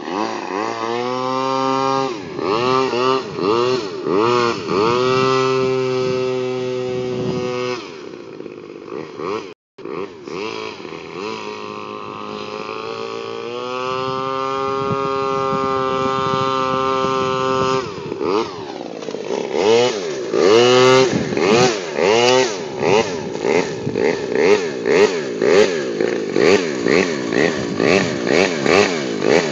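Radio-controlled airboat's small combustion engine and caged propeller, revving up and down over and over. It drops quieter for a couple of seconds about a third of the way in, holds a steady high pitch for a few seconds, then grows louder and pulses rapidly near the end as the boat comes close.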